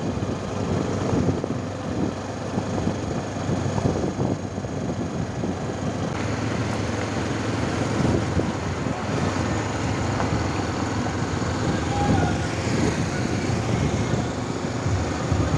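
Wind rumbling on the microphone of a camera riding along on a moving bicycle, mixed with the rolling noise of the bike on asphalt. The noise changes character about six seconds in.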